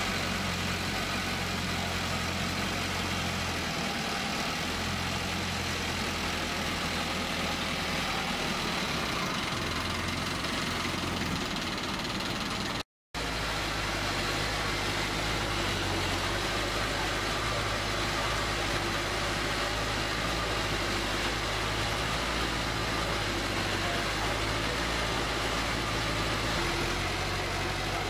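Small wooden river ferry's engine running steadily under way, a low hum over a steady wash of noise. The sound drops out for a moment about halfway through, then the same engine sound resumes.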